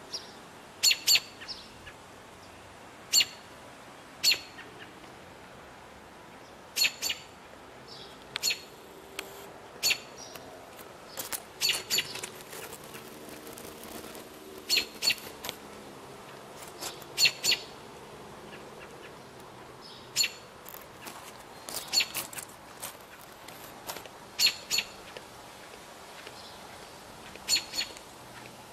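American robin calling: short, sharp chirps, often in twos or threes, repeated every couple of seconds. These are typical of a parent robin's alarm calls near its nest.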